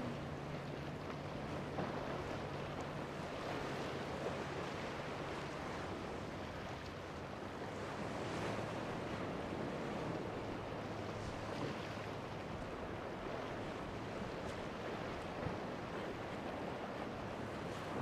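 Waves breaking and churning, with wind on the microphone and the low steady hum of outboard engines, most noticeable in the first several seconds.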